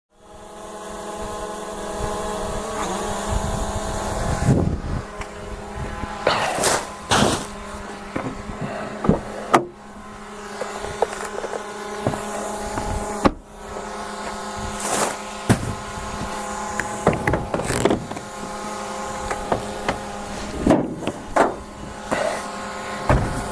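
An engine running steadily, with irregular knocks and clunks over it.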